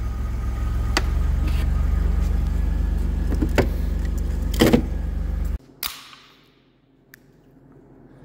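A vehicle idling with a steady low hum, over it a few sharp clicks as the loose, broken side mirror is moved by hand. The hum cuts off abruptly about five and a half seconds in, followed by one sharp knock and then faint room tone.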